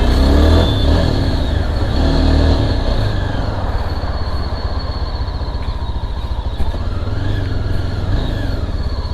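Yezdi Adventure's single-cylinder engine running, revving up twice in the first three seconds, then running steadily.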